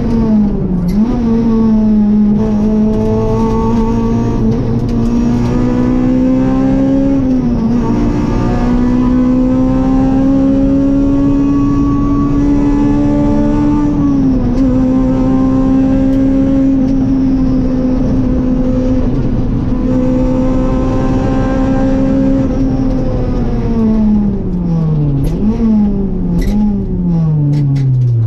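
Rally car engine heard from inside the cabin, held at high revs on a flat-out run, with short dips in pitch at about 1, 7 and 14 seconds. Near the end the revs fall away under braking, with three quick rises in pitch as it changes down with throttle blips.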